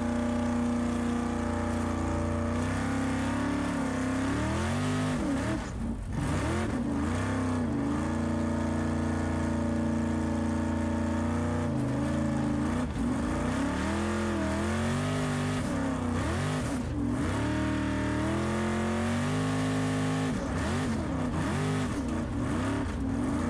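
Formula Offroad hill-climb car's engine running hard at high revs: the pitch holds steady for a few seconds at a time, then swings up and down several times as the throttle is worked.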